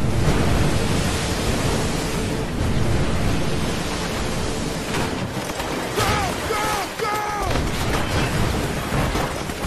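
Dense, steady roar of a war-film beach-landing battle soundtrack: surf, engines and explosions blend into one wall of noise. A few short shouted calls, each falling in pitch, come about six to seven and a half seconds in.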